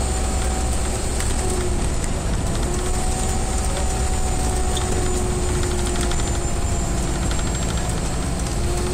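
Cabin noise of an Alexander Dennis Enviro 350H hybrid bus underway: a steady low drone with a faint whine that dips and rises gently.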